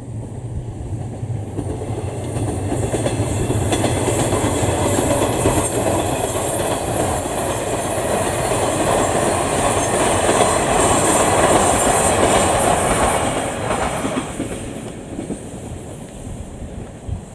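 JR 719 series electric train passing close by: the rumble and clickety-clack of its wheels on the rails build up over a few seconds, stay loud for about ten seconds, then fade as it moves away.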